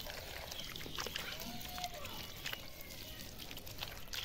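Water from a hose pipe pouring and splashing onto a plastic toy dump truck, with a short distant call near the middle.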